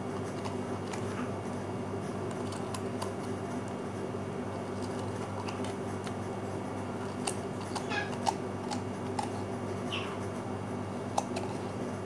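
Knife hollowing out a small kousa squash: faint scrapes and a few light clicks of the blade against the squash, over a steady low electrical hum.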